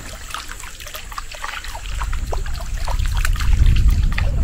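Water trickling and dripping in small splashes around a small boat on a river. A low rumble builds up from about halfway.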